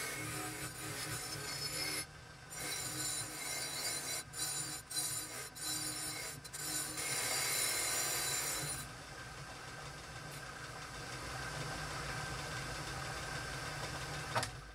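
Motor-driven wire wheel scouring rust off a cast iron mortar: a steady motor hum under harsh scraping that breaks off briefly about two seconds in. A little before nine seconds the scraping stops and the wheel runs on freely with a duller, quieter sound.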